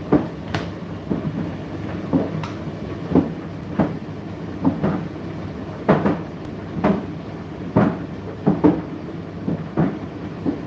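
Indesit IDC8T3 8 kg condenser tumble dryer running: a steady motor and fan hum, with the load thudding irregularly in the turning drum, about one or two knocks a second.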